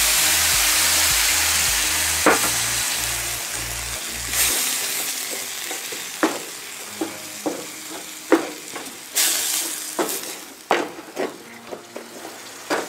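Onions, walnuts and dates sizzling hard in a hot steel pan just deglazed with herbal bitter liqueur, the sizzle dying down steadily over the next several seconds. A wooden spoon scrapes and knocks against the pan now and then as the mixture is stirred.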